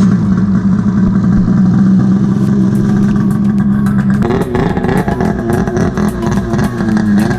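Snowmobile engine running at a steady speed, its pitch beginning to waver up and down about four seconds in.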